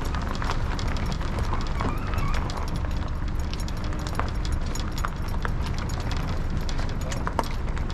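Steady road rumble inside a moving vehicle, with small rattles and clicks throughout.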